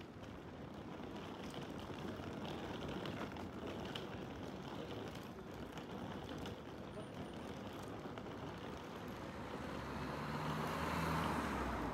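Steady rumbling, rushing noise of a moving vehicle, growing louder with a low hum near the end.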